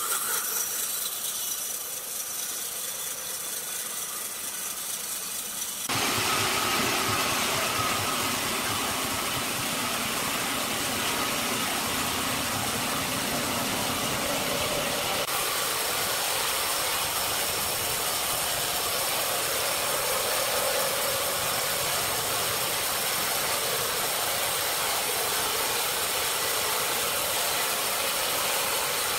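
Horizontal band sawmill running, its band blade cutting through a large log: a steady dense rushing noise over the hum of the mill's motor. About six seconds in it abruptly gets louder and fuller.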